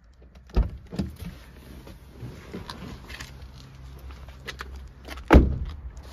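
A person climbing out of a Honda Civic, with knocks and rustling as he gets out, then the car door shut with a loud thump about five seconds in.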